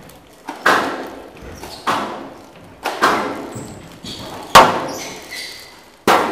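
Squash rally: the ball cracks off the rackets and the court walls about five times, roughly once every second and a half, each hit ringing on in the hall. The loudest comes about four and a half seconds in.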